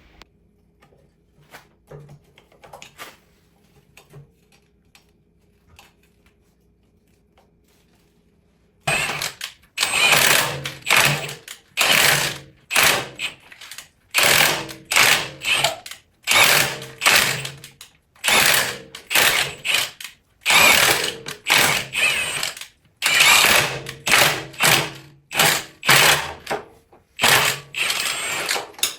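Hand socket ratchet being worked in repeated strokes, a loud burst of ratcheting clicks on each swing, starting about nine seconds in and repeating roughly once a second. Before that, only a few faint clicks over a low steady hum.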